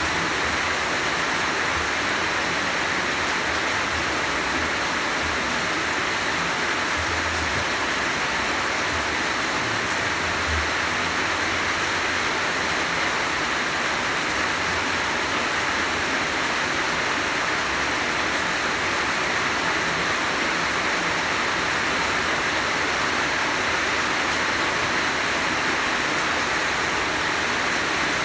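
Heavy rain falling steadily, a dense unbroken hiss with no let-up.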